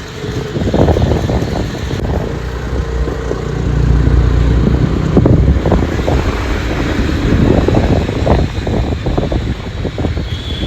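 Wind buffeting the microphone while riding a motor scooter, over the scooter's engine and road noise, with a low rumble that swells in the middle.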